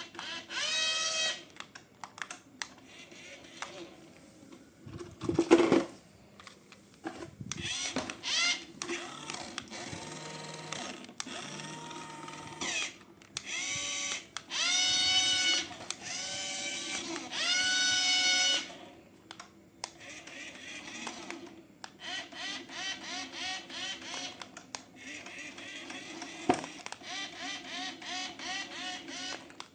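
Electronic sound effects from a battery-powered toy: a string of held, buzzy electronic tones, each sliding up in pitch as it starts. About five and a half seconds in there is one loud sharp hit. A fast, even pulsing fills the last third.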